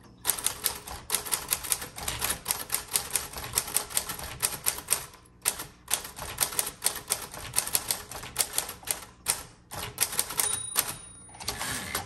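A 1938 Corona Sterling manual portable typewriter being typed on: a muffled clicking of keystrokes, several a second, with two short pauses. Near the end comes a brief high ring, the margin bell warning that the end of the line is near.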